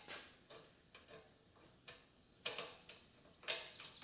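Light, irregular clicks and taps of small hardware being handled: plastic washers and a nut being fitted onto a quarter-inch all-thread bolt at a motorcycle's engine stay and frame. There are about six clicks, the loudest about two and a half and three and a half seconds in.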